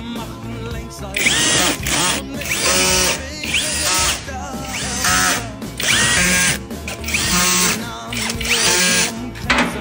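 A handheld power tool, such as an electric drill, is run in about seven short bursts, its motor whining up and down in pitch with each pull of the trigger. Music plays underneath.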